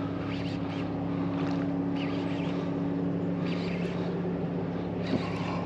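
Steady low engine drone, even in pitch throughout, with short scratchy sounds every second or so over it.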